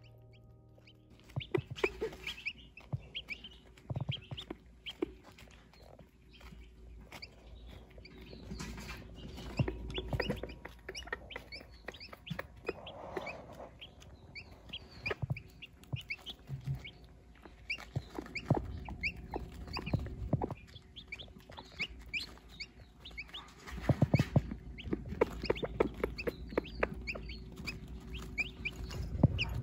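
A silkie hen and her silkie chicks: the chicks peep in quick short notes while the hen clucks softly, with sharp clicks of pecking at feed, starting about a second in.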